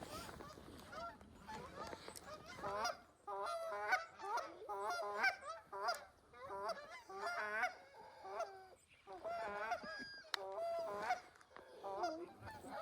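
A flock of geese honking, many calls overlapping, sparse at first and then in a dense, continuous chatter from about three seconds in.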